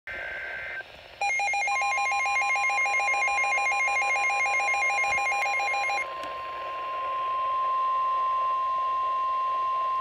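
The tail of a NOAA Weather Radio SAME data header, then the steady single-pitch 1050 Hz warning alert tone that precedes a warning broadcast. Over it, a weather radio's own pulsing multi-tone alarm sounds and cuts off suddenly about six seconds in when a button is pressed.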